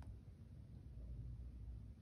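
Near silence: faint room tone with a steady low hum.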